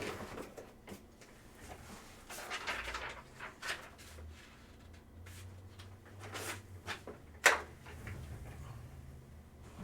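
Handling noises on a table: scattered light knocks and rustles, with one sharp knock about seven and a half seconds in.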